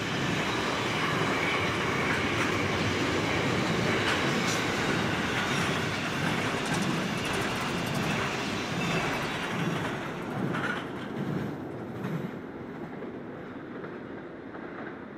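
Container wagons of a long freight train rolling past, with wheels clicking over the rail joints in a regular rhythm. The noise drops after the last wagon passes, about ten to twelve seconds in, and the train's running sound fades away.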